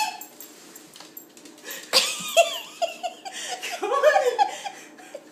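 A sudden knock about two seconds in, then a person laughing in a run of short bursts for a couple of seconds.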